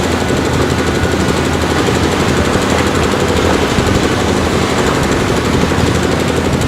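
Diesel engine of a Cat 320D excavator running steadily with a fast, even rattle.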